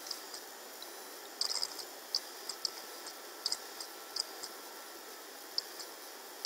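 Steady background hiss with short, high-pitched chirps or ticks at irregular intervals, a few each second.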